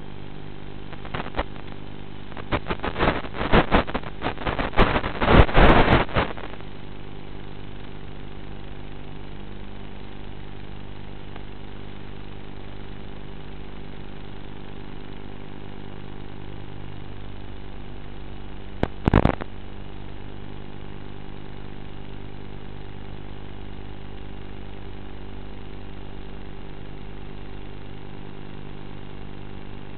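Steady drone of a small electric plane motor and propeller heard from on board the flying wing, with several loud bursts of crackle in the first few seconds and one more short burst about two-thirds of the way through.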